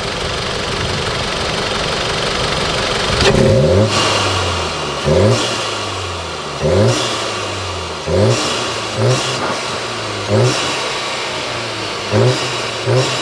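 A turbocharged 2.0-litre four-cylinder engine, heard from its open engine bay, idles steadily and is then blipped about eight times, each rev rising and falling quickly. The diverter valve is still fitted and the car has an aftermarket air intake, so this is the intake sound without the louder turbo flutter.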